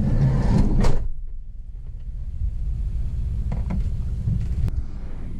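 Low, steady rumble of a vehicle in motion, with a brief loud noise in the first second and a few faint clicks later.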